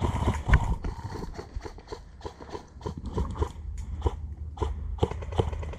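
Footsteps on rough ground with clothing and gear rustling: an uneven series of short knocks and scuffs over a low rumble.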